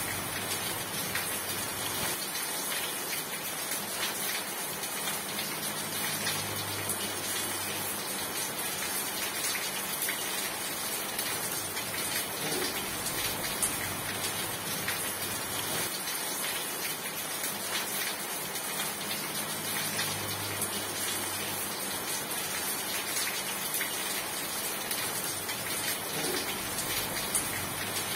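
Steady rain falling, a dense even hiss dotted with the patter of individual drops.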